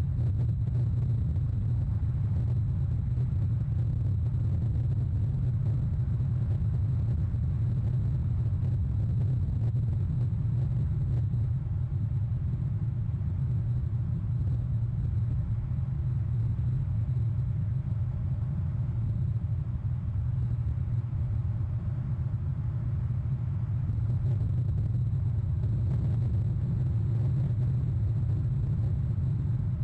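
Steady low rumble with no distinct events, picked up by an outdoor nest-camera microphone.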